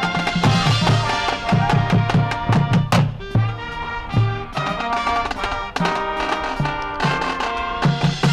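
High school marching band playing, brass over a drumline with many sharp percussion hits and one loud accented hit about three seconds in.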